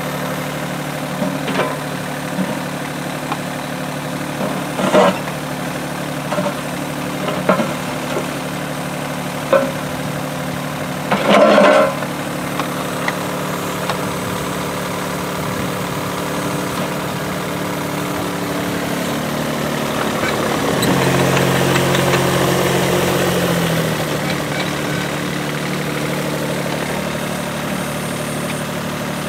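Yuchai YC15-7 mini excavator's diesel engine running steadily while digging, with several sharp clunks from the bucket and arm in the first twelve seconds, the loudest near twelve seconds in. About two-thirds of the way through the engine note deepens and grows louder for a few seconds as it works under load.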